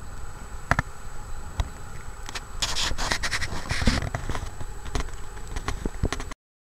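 Crunching footsteps in snow, irregular and about one a second, over wind buffeting the microphone. The sound cuts off abruptly about six seconds in.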